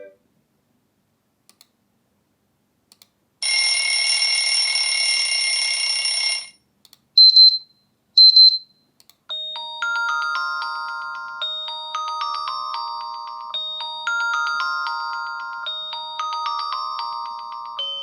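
A run of Xiaomi POCO F2 Pro ringtones: after about three seconds of silence, a steady bright ring lasting about three seconds, then two short high beeps, then from about nine seconds a repeating melody of short chime-like struck notes.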